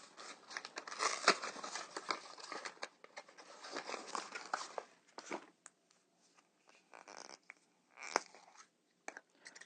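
Unwrapping a chocolate surprise egg: crinkling and tearing of its wrapper mixed with small sharp clicks, thinning to a few scattered clicks and rustles about halfway through.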